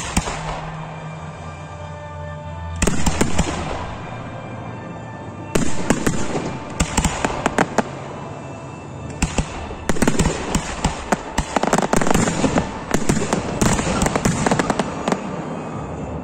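Professional fireworks going off: volleys of sharp bangs and crackle in clusters. Sparse at first, they come thick and fast through the second half.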